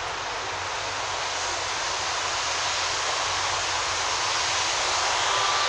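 Steady rushing noise of passing traffic that slowly grows louder, with a faint steady tone coming in near the end.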